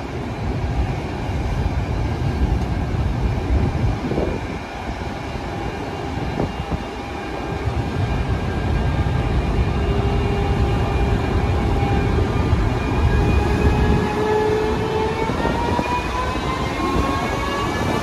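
JR Freight EF510 electric locomotive pulling a freight train away from a standstill, with a low rumble throughout. From about halfway through its inverter whine climbs in pitch in several tones as it gathers speed.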